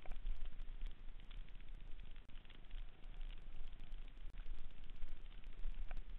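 Mountain bike riding fast down a dirt singletrack: a continuous low rumble of tyres and frame on the rough trail, with many small clicks and rattles throughout.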